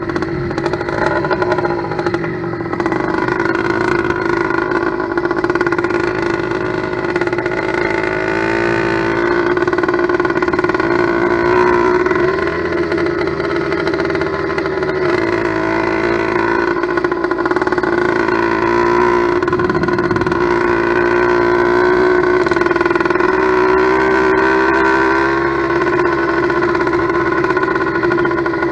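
Two-stroke motorized-bicycle engine, an 89.7cc steel-sleeve kit sold as 100cc, running steadily on one of its first runs after being built, its speed wavering a little.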